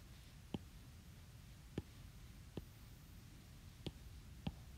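A stylus tip tapping down on a tablet's glass screen as grid lines are drawn: about five faint, separate clicks over quiet room tone.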